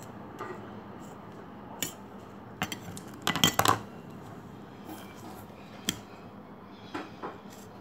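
Steel fork clinking and scraping against a steel plate: scattered single clicks, with a loud quick run of clinks about three to four seconds in.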